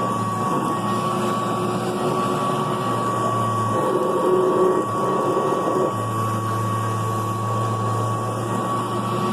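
Kirby Classic III upright vacuum cleaner running steadily, its motor making an even drone with a high whine. About four seconds in, the low hum drops away and the sound turns brighter for about two seconds, then settles back.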